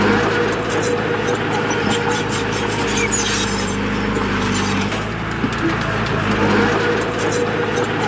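Diesel engine of an earthmoving machine running steadily under load, with irregular metallic clicks and clanks over it.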